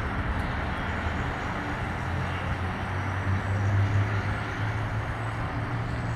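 Diesel locomotives of an approaching freight train running, a steady engine rumble with a low hum that swells a little midway.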